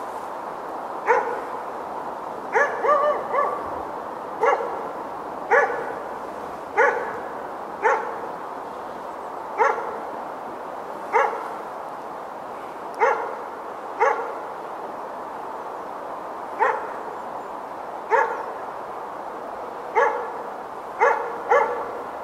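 A dog barking repeatedly: single barks spaced a second or two apart, with a quick run of three barks about three seconds in and a closer pair near the end.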